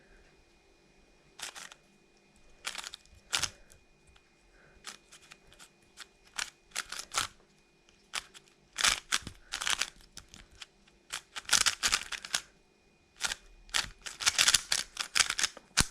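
Moyu Weilong WRM magnetic 3x3 speed cube being turned fast in a solve: bursts of sharp plastic clicks as the layers snap round, sparse at first and denser toward the end. The cube is loose and fast out of the box and feels dry, which the cuber takes for a cube with hardly any lube in it.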